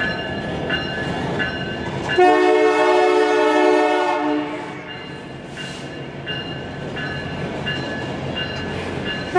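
Lit cars of a passing freight train rolling by with a steady rumble. About two seconds in, the locomotive's air horn sounds a chord for about two seconds, and another horn blast starts right at the end. A short high ding repeats about every 0.7 seconds underneath.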